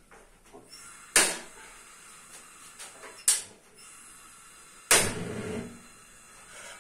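Canon gas stove's spark igniter clicking three times as the burner knob is turned, the clicks about two seconds apart; after the third click comes a short rush as the gas burner catches and lights.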